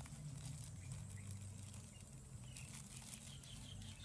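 Faint light clicks and patter of hands handling a whole raw chicken in a steel bowl, over a low steady hum; a run of quick high chirps starts a little past halfway.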